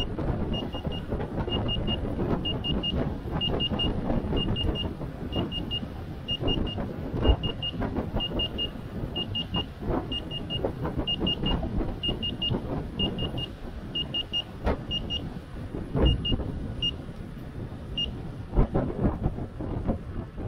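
Electric unicycle's high-speed alarm: short high beeps in twos and threes, repeating quickly, over wind and tyre rumble on asphalt with a few knocks. The beeps stop a couple of seconds before the end.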